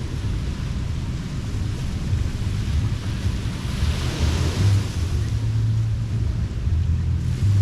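Ocean surf washing onto the beach, a wave swelling and breaking about four seconds in, over a steady low rumble of wind buffeting the microphone.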